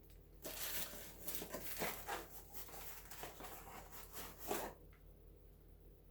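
Packaging being rustled and handled as items are unwrapped and taken out of a shipping box, a busy crackling and scraping that stops about five seconds in.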